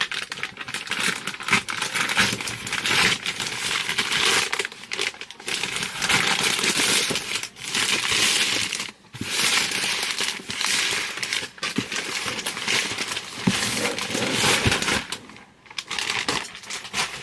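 A cardboard subscription box being opened by hand: continuous crinkling and rustling of packaging, with scrapes and small knocks as the flaps and contents are handled, pausing briefly twice.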